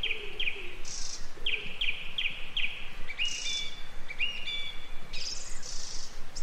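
Woodland birdsong from several birds: a run of short falling chirps repeated two or three times a second, mixed with higher hissing notes and a few rising whistles.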